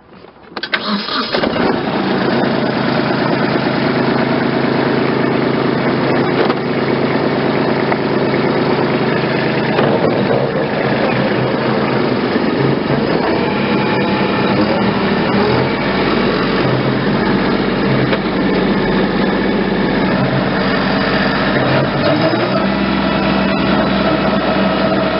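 Compact tractor engine running steadily as the tractor is driven between tree rows, heard from the driver's seat. The sound comes up about a second in, and its pitch shifts around ten seconds in.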